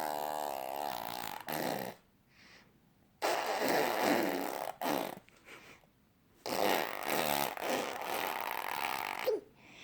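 A baby blowing raspberries, buzzing his lips to make fart-like noises. There are three long buzzes of about one and a half to three seconds each, with short bursts and pauses between them.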